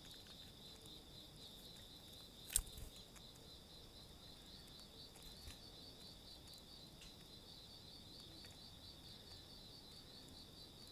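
Faint insects trilling steadily, a high pulsing chirr, with one sharp tap about two and a half seconds in.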